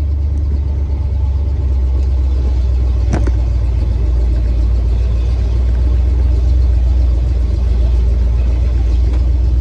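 Classic Ford pickup truck driving, heard from inside the cab: a steady low engine and road rumble that gets a little louder about a second and a half in. A single sharp click about three seconds in.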